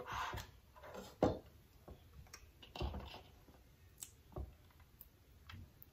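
Small tomatoes being picked from a bowl and set one by one into a stainless steel pan of raw whole fish: scattered soft taps and light knocks, several over a few seconds.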